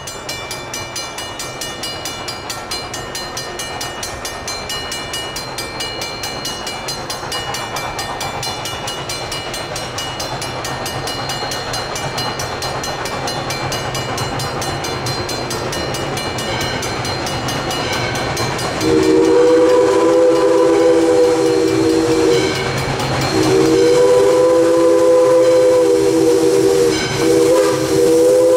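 Valley Railroad No. 40, a 1920 ALCO 2-8-2 Mikado steam locomotive, approaching and growing steadily louder over a rapid, even ringing from the crossing's warning bell. About two-thirds of the way in, its three-note chime steam whistle sounds in long blasts with short breaks, the grade-crossing signal.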